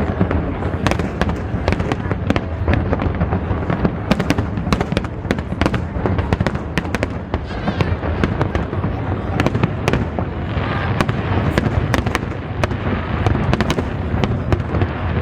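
Fireworks display going off continuously: a rapid, overlapping barrage of sharp bangs and crackles over a deep rumble of booming shells.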